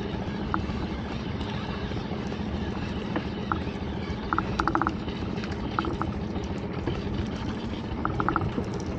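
Small boat's engine idling steadily under water sloshing against the hull. Twice, a short run of rapid clicking from a fishing reel as a hooked fish is wound up.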